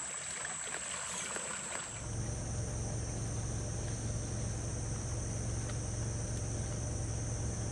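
Steady high-pitched insect chorus, cricket-like, in the background. About two seconds in, the sound changes abruptly and a steady low hum joins it.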